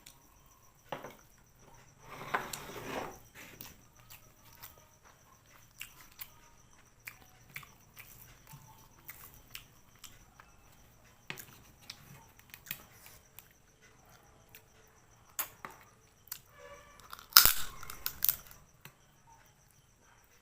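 Eating sounds: scattered sharp clicks and cracks of crab shell and fish-head bones being broken and chewed. A noisy crunching stretch comes about two seconds in, and the loudest burst of cracking comes near the end.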